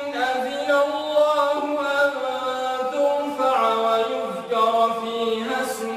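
A male reciter chanting the Qur'an in slow, melodic tajweed style, holding long ornamented notes that step up and down in pitch.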